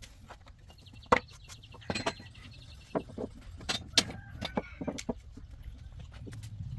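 Scattered sharp knocks and clicks over a low steady hum.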